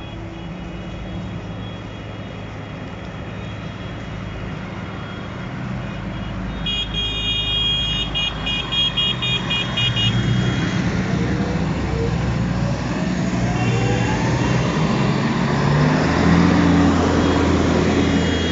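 A convoy of large farm tractors drives past with diesel engines running, growing louder as the nearest tractor passes close near the end. About seven seconds in, a horn sounds a rapid string of short toots, and other horns honk faintly further down the column.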